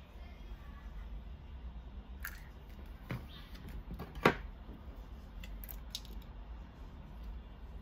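Plastic parts of an opened handheld device housing being handled on a wooden desk: a few light clicks and taps, with one sharper click about four seconds in, over a low steady hum.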